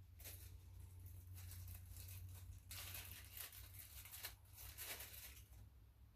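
Faint rustling and scraping of hardware and wood being handled, in a string of short noisy strokes that are thickest in the second half.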